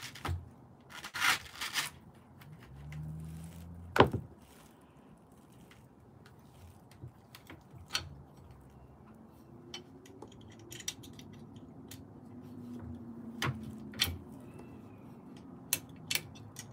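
Hands and tools working on a Veteran Lynx electric unicycle's pedal and pad hardware: scraping and rubbing in the first couple of seconds, one sharp knock about four seconds in, the loudest, then scattered light clicks.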